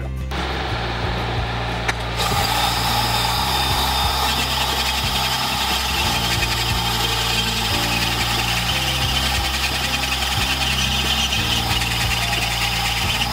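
Flexible-shaft rotary tool running with its bit against a wooden cane shaft, grinding and carving the wood with a steady whir. The sound turns louder and harsher about two seconds in as the bit bites into the wood.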